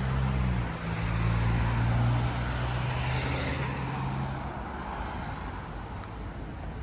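A motor vehicle passing close by on the street. Its engine hums low and steady, the road noise swells to a peak about two to three seconds in, and the engine hum fades out about four and a half seconds in.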